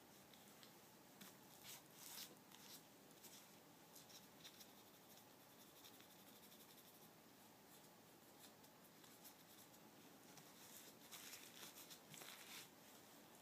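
Faint rustling and crinkling of gloved hands handling dressing supplies and packaging on a paper drape, in two short bursts, one a second or two in and one near the end.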